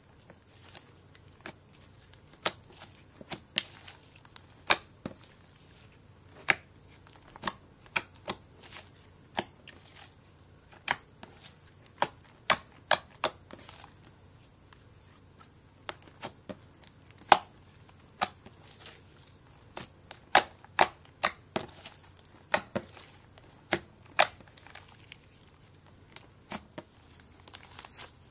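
Slime being stretched, pressed and folded by hand, making sharp, irregular popping clicks, about one or two a second.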